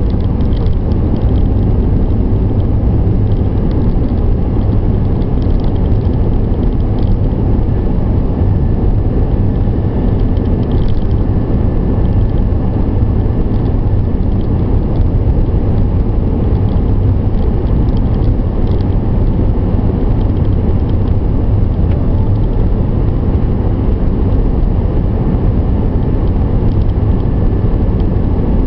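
Steady road and engine noise inside a car's cabin at highway speed: a low, even rumble with a few faint clicks now and then.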